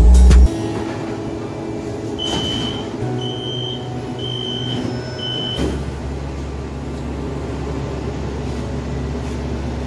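LRT train at a station: four short high door-warning beeps about a second apart, then a knock as the doors shut and a steady low hum from the train's drive comes in.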